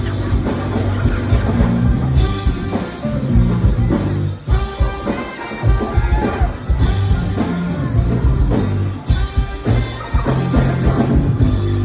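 Live hip-hop band playing a groove, with drum kit and bass guitar strongest, the music briefly dropping out about four seconds in and again about nine seconds in.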